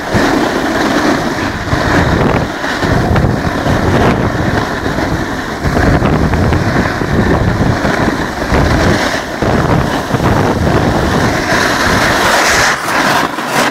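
Wind buffeting the microphone during a fast snowboard descent, with the snowboard's edge scraping over packed snow beneath: a loud, continuous rushing noise that gusts unevenly in the low end.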